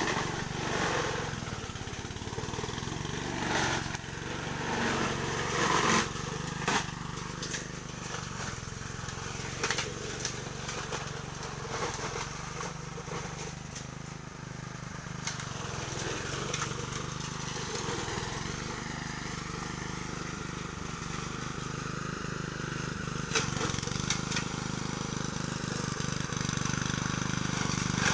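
Honda self-propelled walk-behind lawn mower's four-stroke engine running steadily, with a few scattered clicks and knocks over it.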